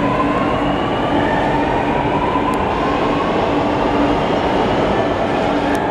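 Chennai Metro electric train (Alstom Metropolis) pulling out of the station: a steady rumble of wheels and running gear under a motor whine that rises slowly in pitch as the train picks up speed.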